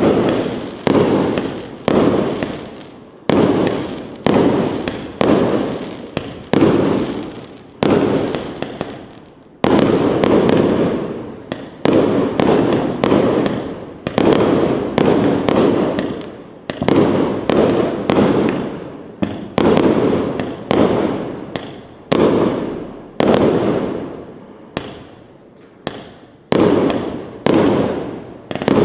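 Multi-shot fireworks cake (PIROFF 100-shot battery) firing: a rapid series of sharp bangs, roughly one or two a second, each followed by a crackling, fading tail of bursting stars.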